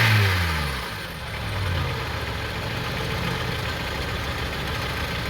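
Honda CR-V 2.4-litre four-cylinder engine falling back from a throttle blip during the first second, then idling steadily.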